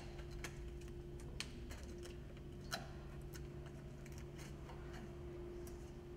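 Faint, scattered small clicks of a plastic engine-oil jug's screw cap being handled and turned, over a steady low hum.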